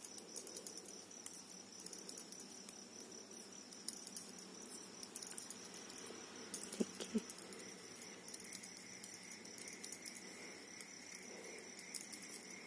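Thin metal knitting needles lightly clicking and ticking as wool stitches are worked, in small irregular taps, over a faint steady high-pitched tone.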